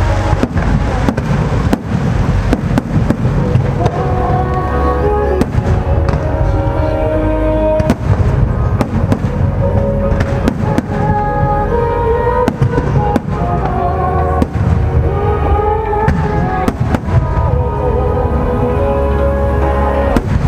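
Aerial fireworks show: many sharp bangs, irregularly spaced, over a constant low rumble, with loud music playing along with the display.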